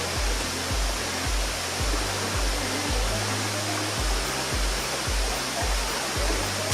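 Steady rushing water from a waterfall-fed stream, under background music with a pulsing bass line of short low notes, about three a second.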